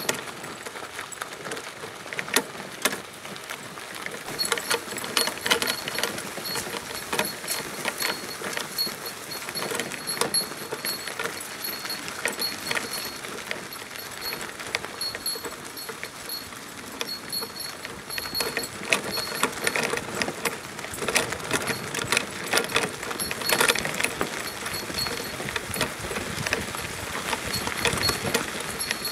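A Sacco dog cart rolling along a sandy dirt road behind a trotting dog: continuous rattling and clicking from the cart's frame and wheels, with a quick rhythm of clip-clop-like footfalls and a faint regular high tick.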